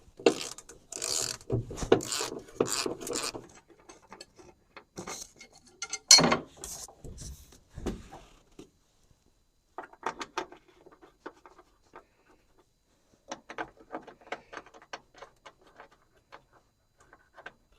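Hand ratchet wrench clicking in quick runs while backing out the hood hinge bolts, in several spells with pauses between, with a louder metal knock about six seconds in.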